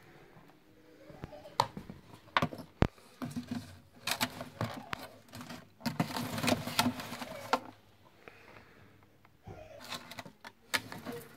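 A clear plastic locust tub being handled and opened: a few sharp clicks and knocks of the plastic, then stretches of rapid crackling and rattling, first about four seconds in and again near the end.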